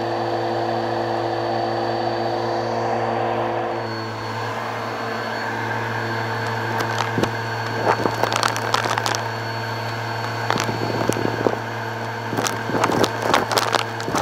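Bissell Purple Helix vacuum running with its open hose, a steady motor hum whose tone shifts about four seconds in. From about halfway on, small dry debris crackles and rattles up the hose, growing busier near the end.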